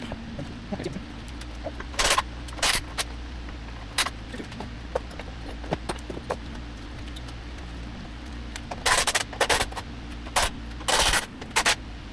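Metal tools and engine parts clinking and clanking during an engine teardown: scattered sharp clanks, then a quick cluster of them near the end, over a steady low hum.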